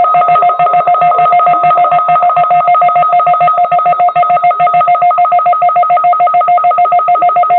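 NOAA Weather Radio warning alarm sounding for a weekly test: a loud, rapid two-pitched electronic beeping, about nine beeps a second.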